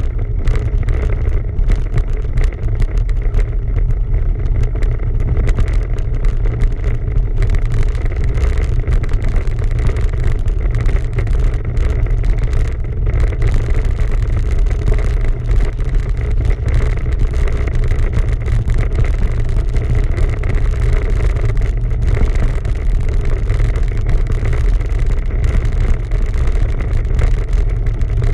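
Wind rumble on the microphone and road noise of a bicycle being ridden: a loud, steady, low rumble with no break.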